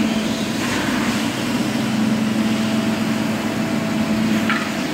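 Zipper SS Super Spinner rotary extraction tool running over carpet: a steady hum with a rush of vacuum suction as its twin spinners turn and pull solution up the wand and hose.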